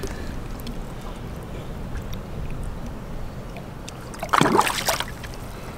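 A short, loud splash about four seconds in as a largemouth bass is released over the side of a boat into the lake, over a quiet steady background.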